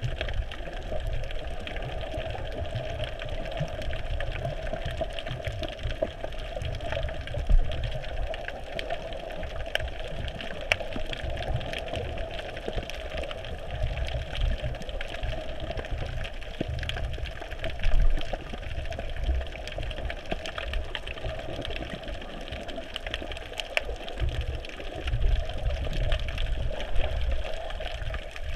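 Muffled underwater ambience heard through a GoPro's waterproof housing: a steady low rumble and hum with scattered faint clicks, swelling briefly louder about seven seconds and eighteen seconds in.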